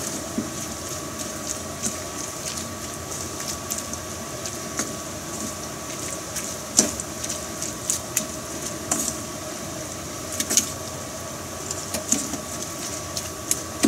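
Shredded vegetables being mixed with kakiage batter in a stainless steel bowl: irregular clicks and taps against the bowl, sharpest about halfway through, over a steady hum with a faint high whine.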